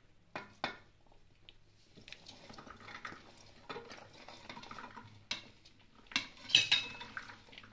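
A hand scooping and sweeping grated cauliflower rice and chopped vegetables across a stainless-steel plate: soft scraping and rustling, with sharp clinks of steel now and then and a louder cluster of clinks about six and a half seconds in.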